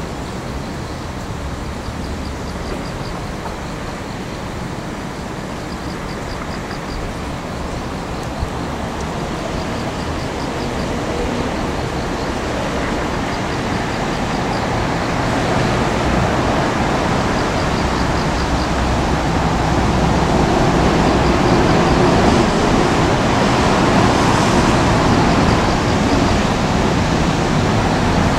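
Demolition excavator with a crusher attachment running: a steady engine rumble that grows louder through the second half.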